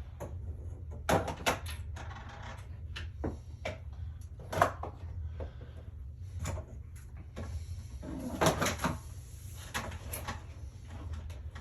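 Irregular clicks and knocks of small toy pieces being handled, knocked together and set down, with a cluster of several knocks about eight and a half seconds in, over a steady low hum.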